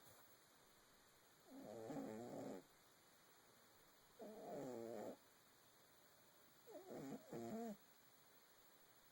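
Elderly pet snoring in its sleep: three snores about two and a half seconds apart, each lasting about a second, the last broken into two short parts.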